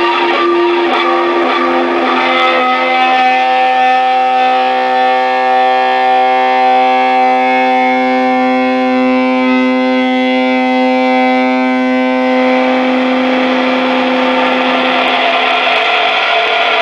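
Loud live noise music from amplified electronics: a steady, held pitched drone with a harsh noisy layer over it. The drone fades out about twelve seconds in, leaving a dense wall of noise.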